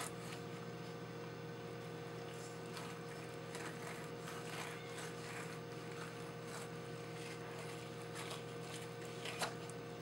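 Fillet knife scraping and slicing faintly as it cuts the skin off a fish fillet on a wooden table, over a steady background hum; a single sharper tap near the end.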